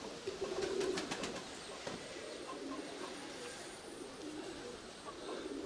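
Domestic pigeons cooing repeatedly, with a few light clicks in the first second or so.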